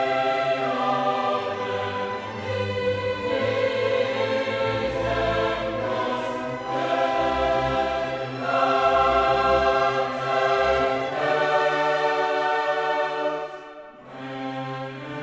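Background music of a choir singing long held chords over orchestral accompaniment, the notes changing every second or so, with a brief drop in loudness near the end.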